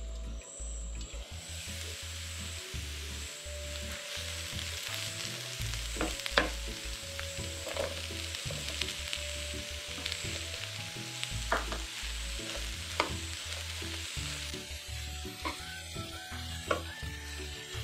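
Diced potatoes, onion and green capsicum sizzling as they fry in a pan, with a metal spatula stirring them and now and then clicking against the pan. The sizzling swells about a second and a half in.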